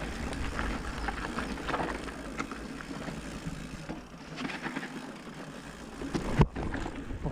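Mountain bike riding down a dirt trail: the tyres rumble over the ground while the chain and frame rattle with many small clicks, and there is one sharp knock about six and a half seconds in.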